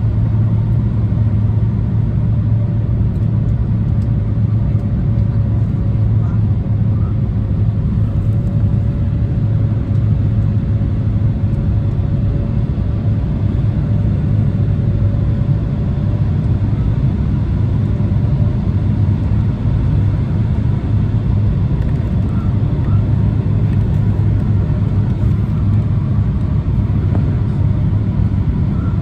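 Steady cabin noise inside an Embraer 175 airliner on approach: the low roar of its GE CF34 turbofans and the airflow, with a faint whine that wavers slightly in pitch for a while.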